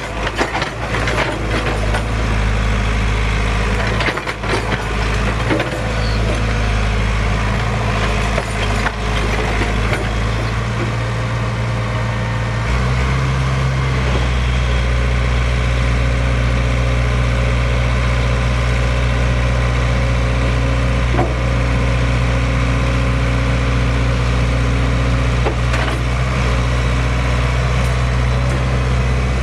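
An excavator's diesel engine running steadily, with many sharp cracks and knocks over the first ten seconds or so. About 13 seconds in the engine note changes to a deeper, steadier hum.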